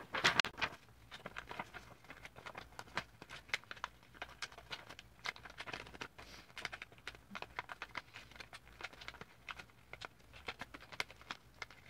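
Sheets of paper rustling and crinkling as they are handled and folded into paper airplanes, in many short irregular scrapes and ticks.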